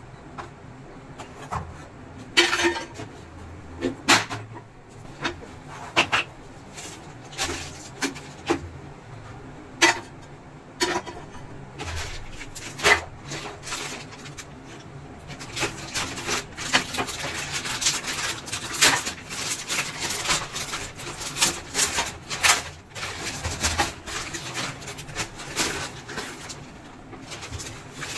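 Knocks and clatter of a plastic induction-cooker body frame being handled on a workbench, then crackling of a plastic packet as a new top panel is unwrapped, densest from about 16 to 23 seconds in.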